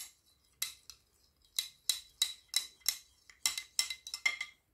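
Metal spoon stirring an oily mixture in a small ceramic bowl, clinking against the sides about three times a second with a short ringing tone; the clinks stop near the end.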